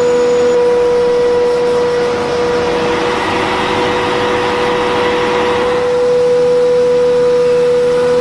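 Electric power tool motor running with a steady whine, with a hiss that swells from about three seconds in and fades again around six seconds.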